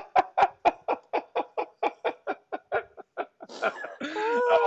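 Hearty laughter in rhythmic 'ha' pulses, about four a second, fading away over about three seconds. Near the end it turns into a breathy, high-pitched wheezing laugh.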